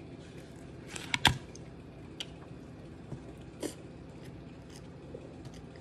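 A few scattered light clicks and taps of a plastic fork against a plastic bowl while eating, the loudest about a second in, over a low steady hum.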